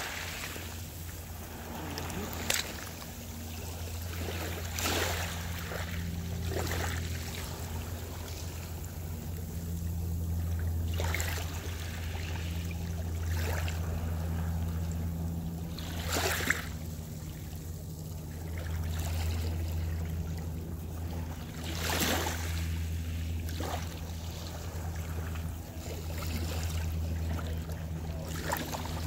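Small waves washing up over pebbles and rocks at the water's edge, a splash and wash every few seconds, over a steady low hum.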